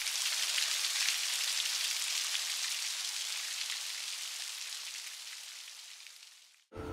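Steady rain falling on wet pavement: a dense patter of drops that slowly fades, then stops abruptly near the end.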